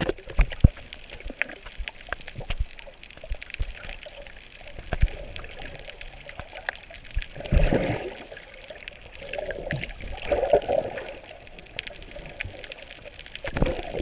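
Muffled water sounds heard through a submerged camera: trickling and gurgling, with many small clicks and a few louder surges of water.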